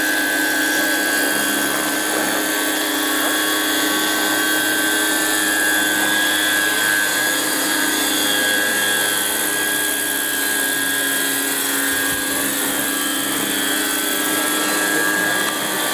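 Electric-powered radio-controlled scale model of a Piasecki H-21 tandem-rotor helicopter in flight: a steady high motor whine with the whir of its two rotors.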